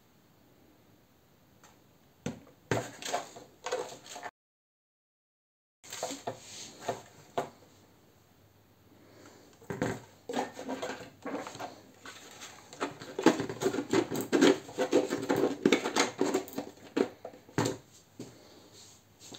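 Workbench handling noise: a 3D-printed plastic RC flying wing being moved about, with small tools and parts knocking and clattering on the bench. The sound drops out completely for about a second and a half some four seconds in. A busier run of rattling and clattering follows in the second half.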